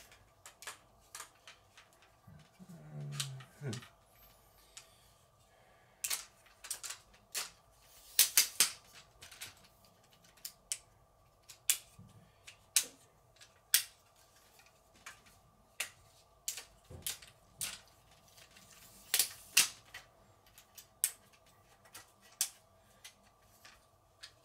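Irregular sharp clicks and knocks of hard plastic and metal parts as a new Manfrotto tripod is unpacked and handled, with a few louder knocks about eight seconds in and again near nineteen seconds.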